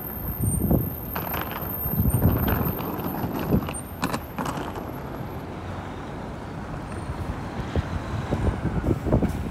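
City street ambience: a steady traffic hum with irregular low thumps of walking footsteps, two sharp clicks about four seconds in, and faint short high beeps repeating about once a second.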